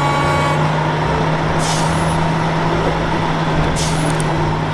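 Heavy-duty wrecker tow truck's diesel engine running steadily as the truck drives along, with two short hisses of air from its air brakes, about two and four seconds in.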